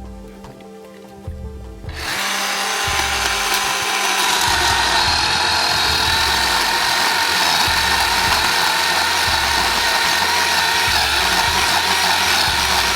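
Quiet background music, then about two seconds in a chainsaw starts cutting at full throttle, a loud steady high whine that holds, with music underneath.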